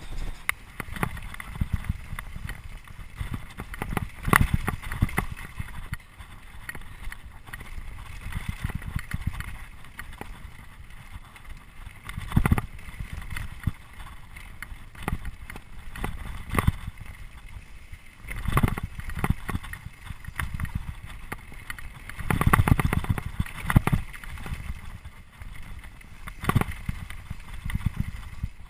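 Trek Remedy 8 mountain bike descending a rough gravel and rock trail at speed: a constant rumble of tyres on loose stones with frequent knocks and rattles as the bike hits rocks and bumps. Heavier clatters come now and then.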